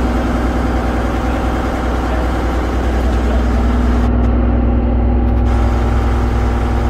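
A vaporetto waterbus's engine running steadily on board, a constant hum with a deep rumble that grows stronger about three seconds in.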